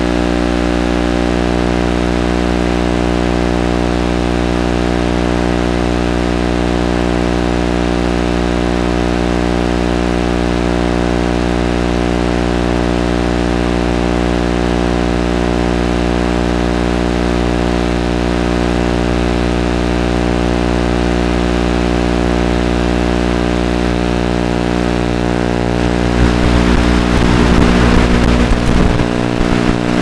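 Steady drone of an idling engine. About four seconds before the end it grows louder and rougher for a few seconds, then settles back.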